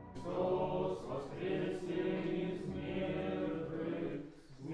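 A group of voices chanting an Orthodox prayer together, in sung phrases with a short break near the end.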